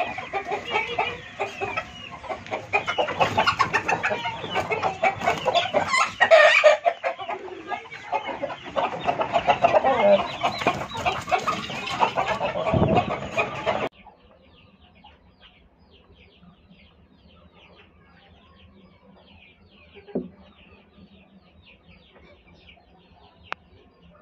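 Aseel chickens, a rooster and a hen, clucking and calling loudly over a busy scuffle for the first fourteen seconds or so. The sound then drops abruptly to a faint background with light high chirps and a single thump.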